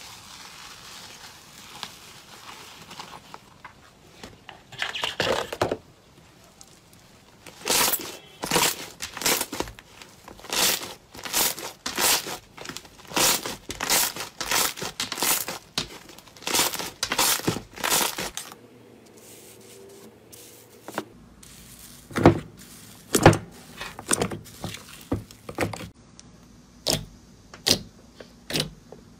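Hands squeezing and kneading bubbly blue slime, giving a steady run of crackling, crinkling pops about twice a second. Then fingers press into a glossy, stretchy green slime, giving separate sharp squelching pops.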